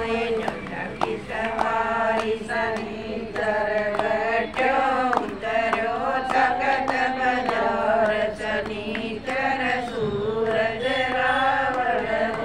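A group of women singing a Hindi devotional bhajan together in unison, with hand claps keeping the beat.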